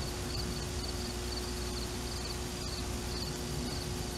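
Insects chirping: short high chirps repeating about twice a second over steady background noise, with a faint steady low hum underneath.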